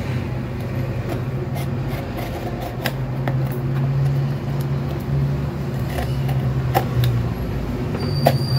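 A steady low hum throughout, with scattered short clicks and scratches of a utility knife cutting the packing tape on a small cardboard box.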